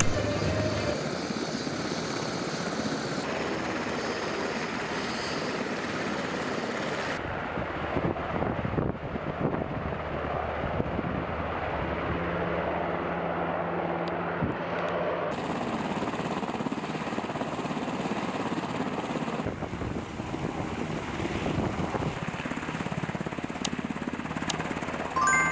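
UH-60 Black Hawk helicopters' twin turbine engines and rotors running as they fly in and sit with rotors turning, a steady rushing noise whose character changes abruptly several times between shots.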